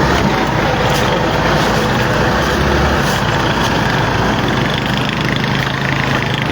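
A motor vehicle engine running steadily with a constant noise of movement. The lowest hum fades about three seconds in.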